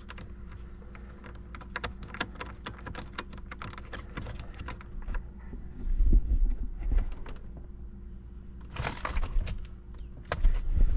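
Light clicking, tapping and small rattles of plastic dash parts and screws as the instrument cluster is seated in the dash and its screws started by hand, over a low steady hum. A louder scuffing rustle comes about nine seconds in.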